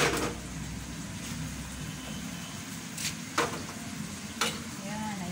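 Kitchen work sounds: several short knocks and clacks of utensils and cookware being handled over a steady low hum.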